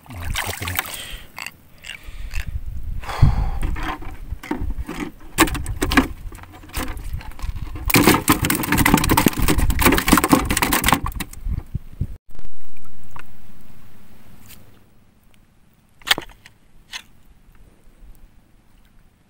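Shallow water splashing and knocking as a bamboo spear pole pokes about the reef, and a catch is handled into a plastic container. It is densest and loudest in the middle, then mostly quiet with a few sharp clicks.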